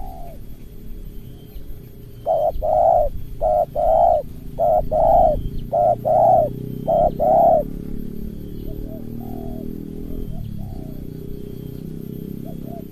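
Spotted dove cooing: a rapid run of about ten throaty coos, short and long notes mixed, starting about two seconds in and lasting some five seconds, followed by a few fainter coos. A steady low background noise runs underneath.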